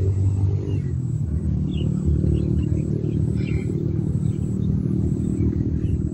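A steady low rumble, like a motor running, that keeps on without a break, with a few faint high chirps over it.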